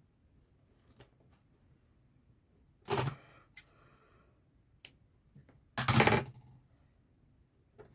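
Handling sounds of hand embroidery: two short, loud scratchy rasps about three seconds apart, the second the louder, with faint ticks between them.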